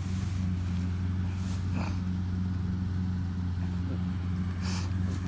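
Engine of a combine harvester running steadily with a low hum. Three short rustles break in, about a second and a half in, near two seconds in and near the end.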